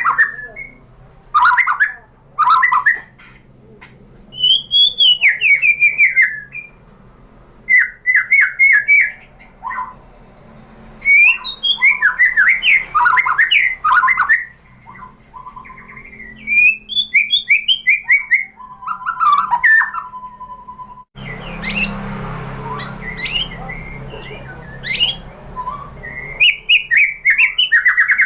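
White-rumped shama (murai batu) singing: varied phrases of clear whistles, quick chirps and harsher notes, separated by short pauses. A stretch of background hiss comes in about three-quarters of the way through.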